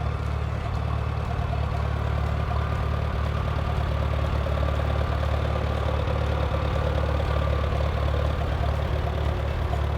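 John Deere tractor engine running at a steady, even speed, starting abruptly.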